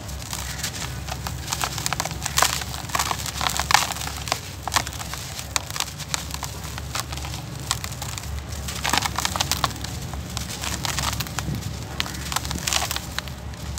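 Dry, gritty dirt clumps crushed and crumbled by hand in a tub, with loose soil pouring back down: irregular crunching and crackling throughout.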